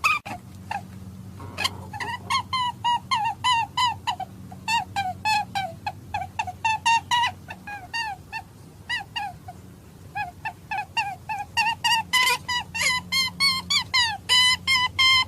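Hare-hunting lure call: a rapid series of short, hooked squeaky calls, several a second, with brief lulls in the middle and growing louder again in the last few seconds.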